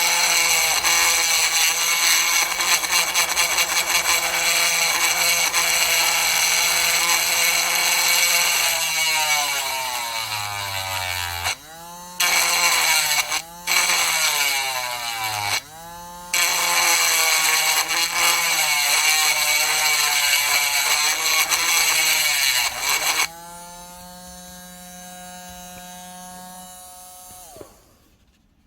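Small electric power tool running under load, its whine sagging in pitch and cutting out briefly a few times partway through. It then runs lighter and quieter for a few seconds before spinning down near the end.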